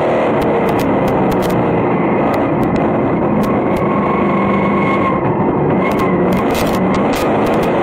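Vintage modified sportsman dirt-track race car's engine running hard under race throttle, heard from inside the cockpit, its pitch easing a little about five seconds in and then climbing again. Sharp clicks and ticks are scattered throughout.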